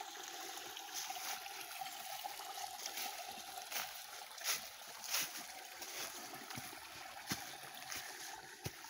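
Steady trickle of spring water running into a stone basin, with a few footsteps crunching on dry fallen leaves.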